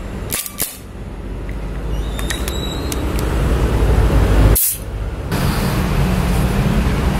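Green-gas blowback airsoft pistol firing two quick shots about a third of a second apart, then a few light metallic clicks about two seconds in as the magazine is taken out. Under it, a steady low rumble of traffic that shifts abruptly about five seconds in.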